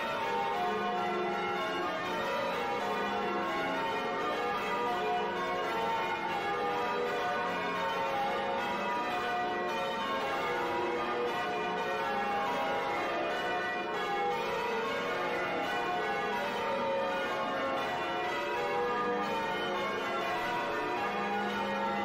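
Church bells rung full-circle in changes (English change ringing), heard close up from the bell chamber just above the bells: an unbroken run of overlapping bell strikes, each ringing on into the next.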